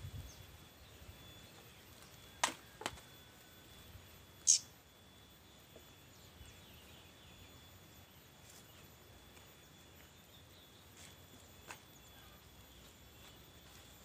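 Quiet outdoor background with two short clicks about two and a half seconds in, then a single sharp, high-pitched chirp-like squeak about four and a half seconds in, the loudest sound. A faint steady high whine runs underneath.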